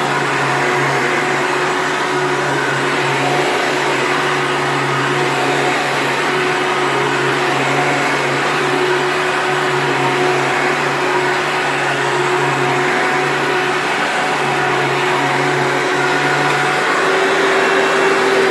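Hoover Elite bagged vacuum cleaner running steadily, a loud motor whine over a low hum. Near the end the low hum drops away and the motor is switched off, its pitch starting to sink as it winds down.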